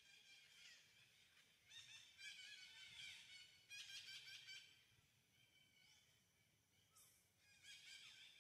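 Faint chorus of many small birds chirping and trilling at once, in overlapping bursts that thin out past the middle and pick up again near the end.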